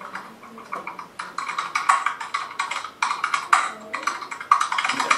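A rapid, irregular run of small clicks and taps, coming in quick clusters.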